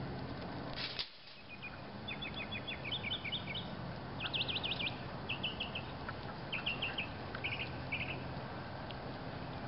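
A small songbird singing a string of short, rapid chirping and trilled phrases over a steady low hum, with a single click about a second in.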